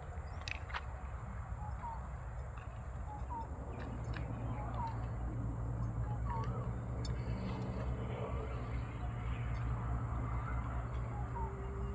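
Outdoor ambience: short bird chirps repeating every second or so over a steady low rumble, with a few faint clicks.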